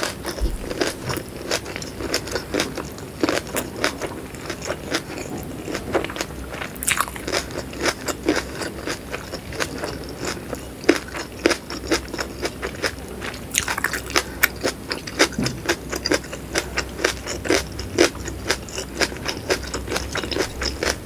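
Close-up chewing of whole shallots in chili sambal with egg: a steady run of small crunches and wet mouth clicks.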